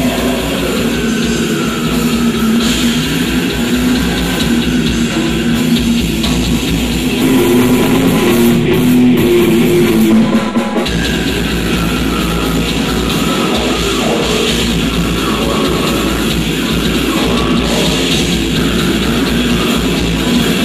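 A heavy rock band playing live, with electric guitars and a drum kit.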